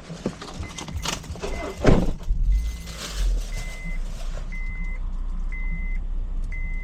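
An electronic warning beep sounding about once a second, growing louder, while a motor vehicle engine starts about two and a half seconds in and then runs steadily. Two loud knocks come in the first two seconds.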